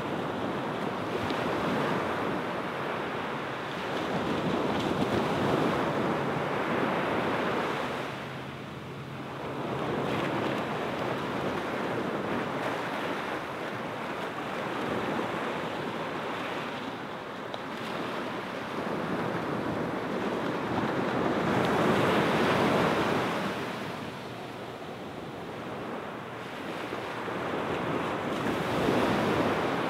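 Small waves washing onto a sandy beach, the surf swelling and fading in slow surges every several seconds.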